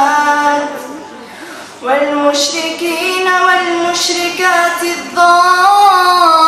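A girl's voice reciting the Quran in melodic tajweed chant, drawing out long held notes. She pauses about a second in, then resumes with a long ornamented phrase.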